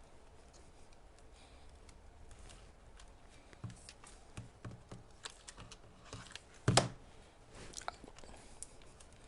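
Light clicks, taps and brief scrapes of e-bike battery parts being handled and fitted together by hand, with one louder knock about seven seconds in.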